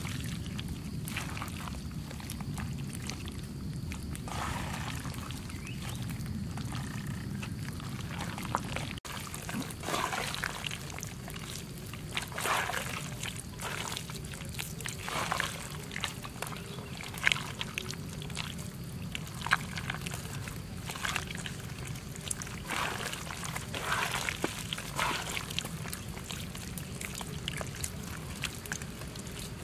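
Hands squeezing and kneading a wet mixture of raw fish roe and herbs in a pan: irregular wet squelches and squishes, closer together and plainer after about nine seconds in, over a low steady rumble that stops at that point.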